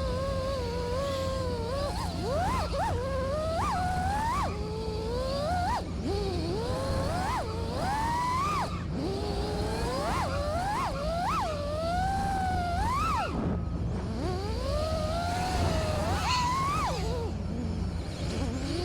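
5-inch FPV quadcopter's brushless motors (Ethix Silk 1750kv) whining, the pitch swooping up and down sharply and repeatedly as the throttle is punched and backed off.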